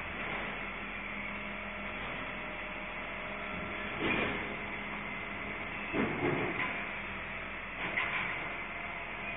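Refuse collection truck working in the street: a steady running of its engine and machinery, with louder clattering bangs about four, six and eight seconds in.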